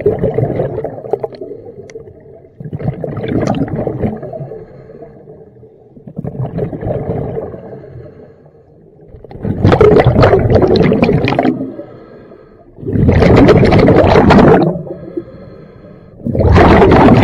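A diver breathing underwater: exhaled air bubbles out in about six bursts roughly every three seconds, the last three louder, with a faint hiss of inhaling between them.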